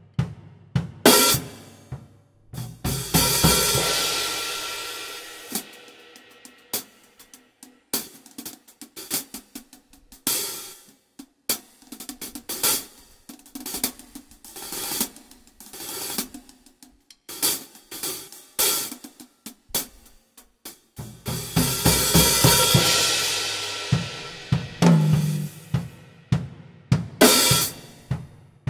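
Acoustic drum kit played on its own with no backing track: a sparse groove of kick, snare and hi-hat hits, with Sabian HHX cymbal crashes ringing out about three seconds in and again about twenty-one seconds in.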